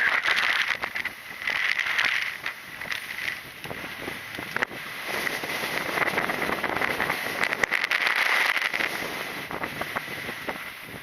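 Strong gale buffeting an action camera's microphone: a loud rushing roar that swells and eases in gusts, with a few sharp clicks.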